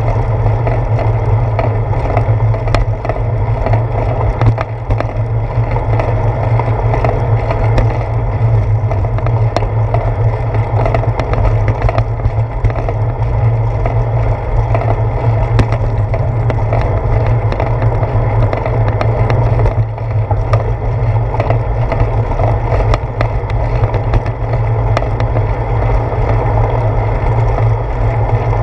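Bicycle rolling over concrete pavement, heard through a seat-post-mounted camera: a steady low rumble and rattle of road vibration, with light clicks and knocks now and then.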